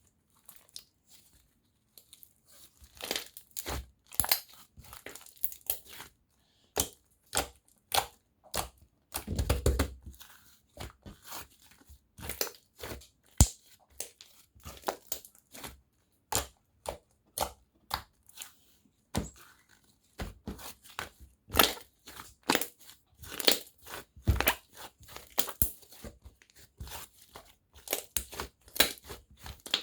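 Handmade slime being squeezed, stretched and pressed by hand, giving a run of irregular sticky pops and crackles, with a heavier squish about ten seconds in.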